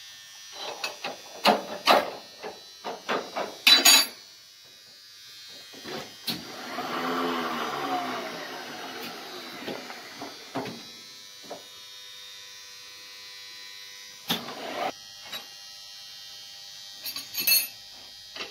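Metal tools clinking and clanking as they are handled on the steel table of a boring machine, in clusters of sharp knocks. A brief humming sound that wavers in pitch comes in the middle.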